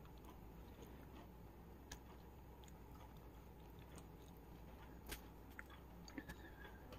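Near silence: room tone with a low steady hum and a few faint, sharp clicks, the clearest about five seconds in.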